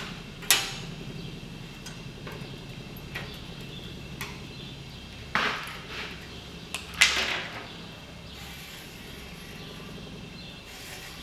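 Sharp metallic clinks and knocks as a sheet-steel strip is handled and marked on a steel workbench: one about half a second in, two louder ones near the middle, and a few lighter clicks between. A steady low hum runs underneath.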